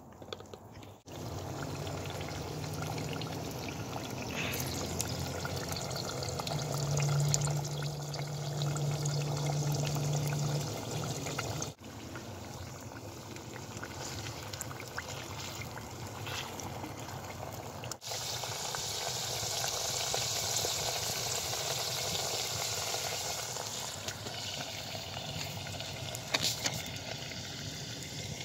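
Sliced potatoes frying in hot oil in a pot over a wood fire: the oil sizzles and bubbles steadily, with scattered small crackles. A low steady hum sounds for several seconds in the first half.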